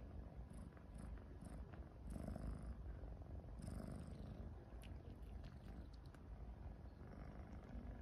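LaPerm kitten purring faintly, a steady low rumble that swells with each breath, while its nose is touched.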